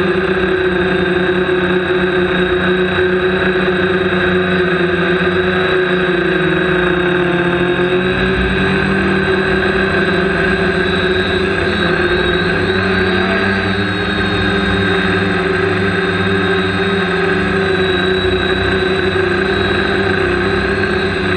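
Quadcopter's electric motors and propellers whirring steadily in flight, the pitch of the whine dipping and shifting a few times as the throttle changes.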